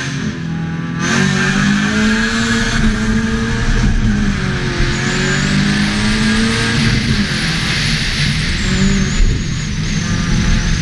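Opel Corsa B's 1.4-litre 16-valve four-cylinder engine launching from a standing start and accelerating hard, getting sharply louder about a second in. Its pitch then climbs and drops back several times as the car is driven through the gears.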